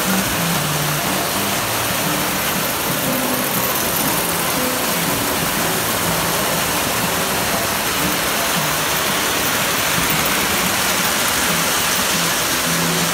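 Three-rail model trains running along metal track, a steady running noise of wheels and motors with no pauses.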